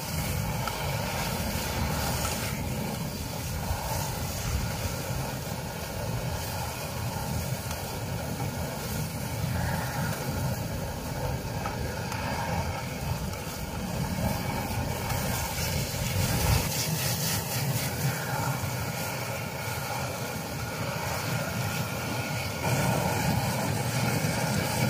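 Tomatoes frying in a wok over a portable gas camping stove, a steady rushing noise with the scrape of a spatula stirring them. Near the end water is poured into the hot pan and the sound grows louder.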